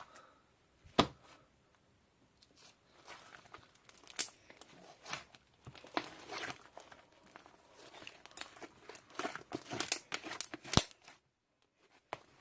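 Crinkly wrapping material being handled: irregular rustling and tearing with sharp clicks, loudest about a second in and again near the end.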